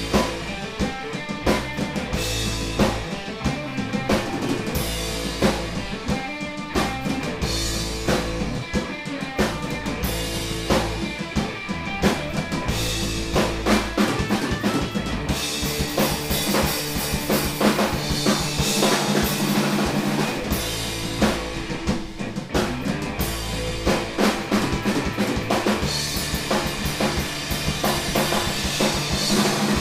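Instrumental rock band playing live: two electric guitars over a full Pearl drum kit with steady kick and snare. The cymbals come in harder about halfway through.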